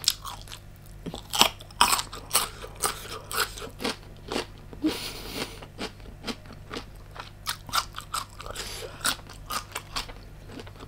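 Close-miked chewing of giant black tiger prawn meat: a rapid run of crisp crunches and wet mouth clicks, several a second, with a brief hissing noise about five seconds in.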